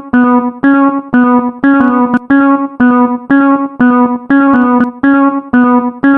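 Japanese railroad crossing (fumikiri) alarm ringing its 'kan-kan' bell tone, a struck ringing note repeating steadily about twice a second, alternating between two slightly different pitches.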